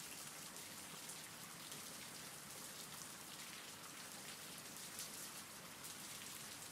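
Faint, steady rain falling, an even patter of drops with no letup.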